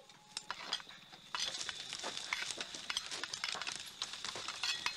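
Scattered sharp clicks and crackles, like brush and twigs snapping in the dark woods, over a faint steady high tone.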